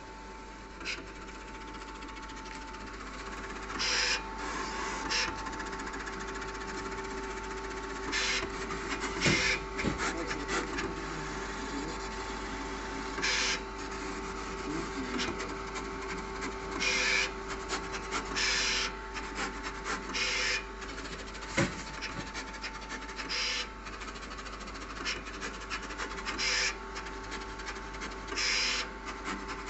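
Graphtec CE6000-40 Plus cutting plotter contour-cutting printed sticker sheet: a steady motor hum with two held tones, broken by short rasping bursts at irregular intervals of one to three seconds as the carriage and rollers shuttle the sheet.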